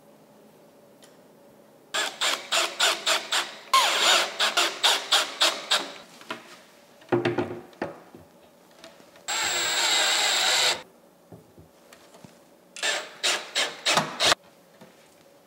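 Cordless drill driving screws into the wooden cabinet doors in several short bursts of rapid clicking. One steady run of the motor comes about two-thirds of the way through. The screws fasten the new hinges to the doors.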